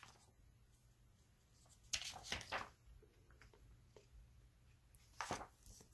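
Comic book pages being flipped: brief soft paper rustles about two seconds in and again near the end, with near quiet between.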